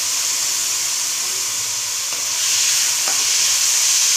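Raw chicken cubes sizzling in hot oil and garlic paste in a pan: a steady frying hiss that grows louder about two and a half seconds in as the pieces are stirred.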